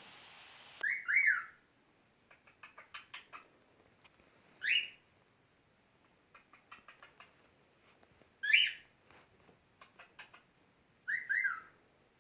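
Cockatiel making kissing noises and whistling: short rising whistles every few seconds, the first and last doubled, with runs of quick soft smacking clicks between them.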